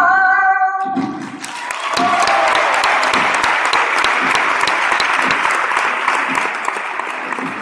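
A sung phrase ends on a held note within the first second, then an audience applauds, the clapping filling in fully about two seconds in and thinning slightly near the end.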